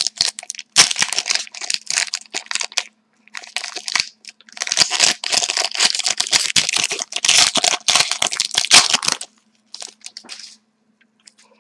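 A hockey card pack's wrapper being torn open and crinkled by hand: a long run of crackling, crumpling rustles that stops about nine seconds in, followed by a few faint rustles.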